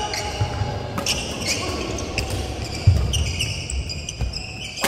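Badminton doubles rally on a wooden hall floor: sharp racket strikes on the shuttlecock, shoes squeaking and feet thudding as the players move, echoing in the large hall. The loudest sound is a heavy footfall about three seconds in.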